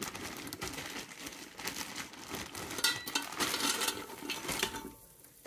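Frozen sweet potato fries being poured from their bag into a metal air fryer basket: a long, rattling clatter of many small, hard, frozen pieces hitting the basket and each other. It stops about a second before the end.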